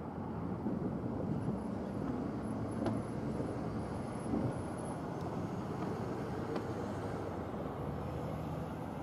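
Diesel-electric freight locomotives running at low speed, a steady low engine rumble with a few faint clicks from the train.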